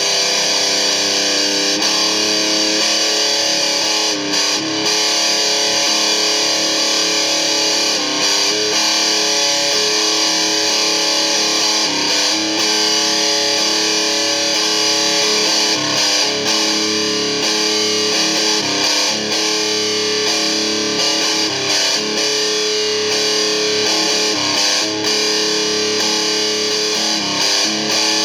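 Distorted electric guitar playing held notes and chords that change every few seconds.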